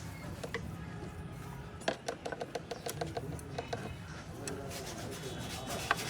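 Toyota Corolla Altis engine running, with a quick run of light ticks and rattles about two seconds in. This is the sound problem that the workshop puts down to the engine's timing adjuster.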